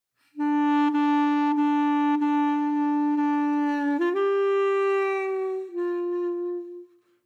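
Background music: a wind instrument plays slow, long held notes. The first note lasts about three and a half seconds, then the melody steps up, drops a little about two seconds later, and fades out near the end, with faint ticks keeping a slow beat under the first note.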